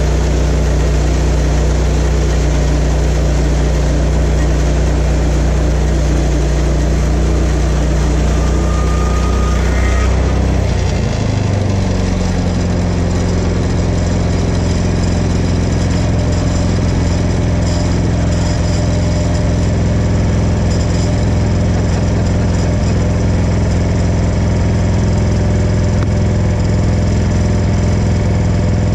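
Engine of a portable bandsaw sawmill running steadily; about ten seconds in its note rises to a higher, steady speed.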